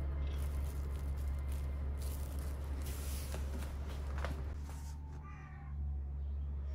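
Plastic cling film crinkling and rustling as hands press it down over a tray of seedling pots. About five seconds in there is a short high-pitched call.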